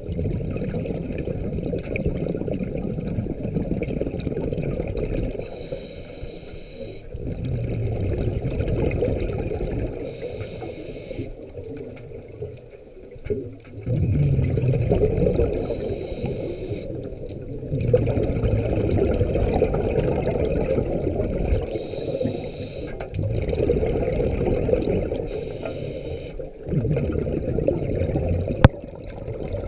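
Scuba diver breathing through a regulator underwater: a short hiss on each inhale, then a longer, louder rush of bubbling exhaust bubbles, repeating about every five seconds. A single sharp click near the end.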